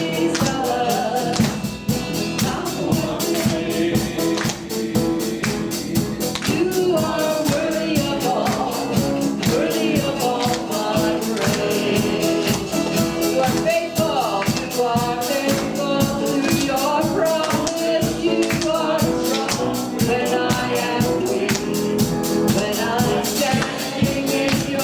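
Live worship band playing an upbeat song with singing over a steady beat.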